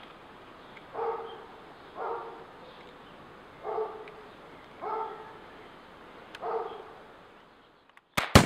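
A dog barking, five single barks spread a second or so apart, then a sharp, loud crack near the end as a break-barrel air rifle fires.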